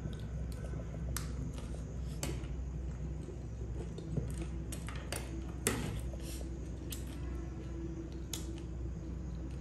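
Metal spoon clinking and scraping against a dinner plate of noodles, several sharp clinks spread apart, over a steady low hum.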